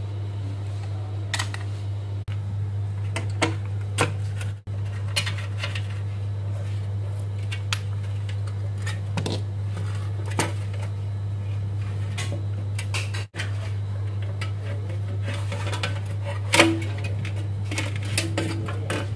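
Scattered clicks, scratches and scrapes of fingers working at the rusty metal frame of an LED floodlight housing and pulling a cable loose from it, over a steady low hum. One louder knock near the end, and the hum cuts out abruptly a few times.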